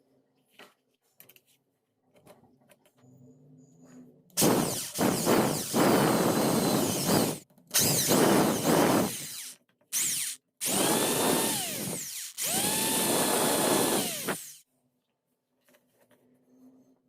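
Small electric drill whirring in five bursts, one of them very short. In several bursts the motor's pitch falls away as it spins down.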